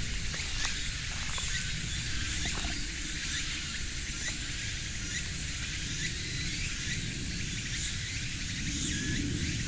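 Steady high hiss of insects in the trees over a low rumble, with a few faint ticks in the first three seconds.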